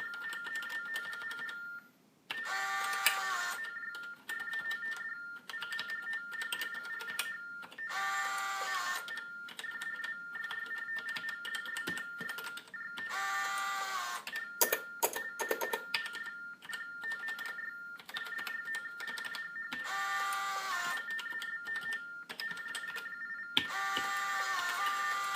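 TDD (teletypewriter for the deaf) sending Baudot modem tones, two high tones warbling back and forth without a break. About every five to six seconds its small built-in printer buzzes for about a second as it prints a line, and a quick run of keyboard clicks comes near the middle.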